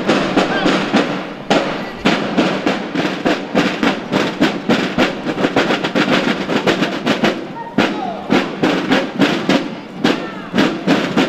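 Snare and bass drums of a marching drum corps beating a steady parade cadence, with crowd voices mixed in.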